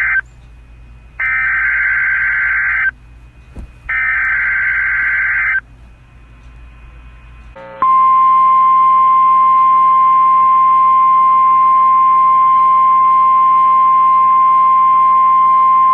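Emergency Alert System SAME header: the end of one shrill, buzzing digital data burst, then two more, each about 1.7 s long with about a second's gap. About eight seconds in, the steady single 1050 Hz NOAA Weather Radio alert tone starts and holds.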